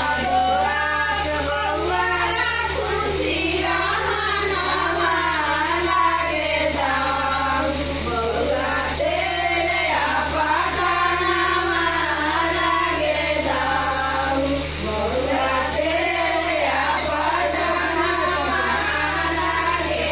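Several women's voices singing a song together, over a steady low hum.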